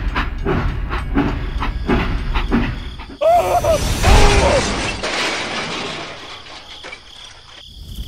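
Toy train clattering along its track in a regular rhythm about twice a second, then a sudden loud crash with shattering noise about three seconds in as it derails, fading away over the next few seconds.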